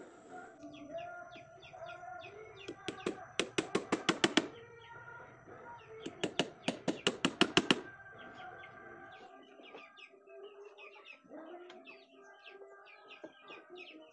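Hammer striking a wooden engine-mount block in a wooden boat hull: two quick runs of about ten blows each, a couple of seconds apart. Birds chirp in the background.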